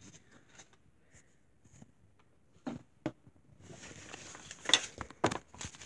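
Hands handling a plastic wrapper: a few faint taps, two sharp knocks near the middle, then rustling crinkles with sharp crackles over the last two seconds.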